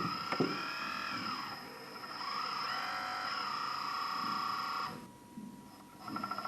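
Electric hydraulic pump and motors of a radio-controlled hydraulic construction model whining, the pitch rising and falling twice as the controls are worked, dropping away briefly about five seconds in and then coming back with a fast pulsing.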